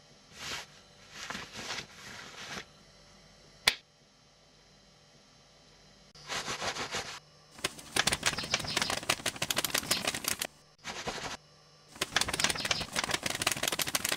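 Sound effects on an animated film's soundtrack. First come a few short rustling bursts and one sharp click, the loudest single moment, about four seconds in. Then, from about six seconds in, come long runs of fast, dense clicking and rattling, broken by short pauses.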